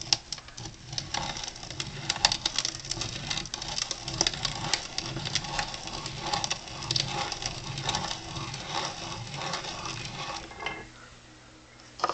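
Grain grinder crunching soybeans, a dense irregular crackle of beans being cracked and milled into a coarse powder, which stops about eleven seconds in.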